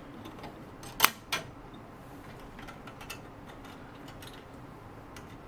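Light metallic clicks and taps as a band saw blade is worked by hand onto the bottom wheel of a mini band saw. One sharp click about a second in is followed by a smaller one, then scattered faint ticks.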